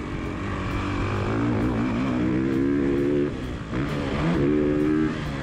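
Motocross dirt bike engine running under throttle as the bike is ridden on a dirt track, its pitch climbing, dropping sharply about three seconds in, then climbing again.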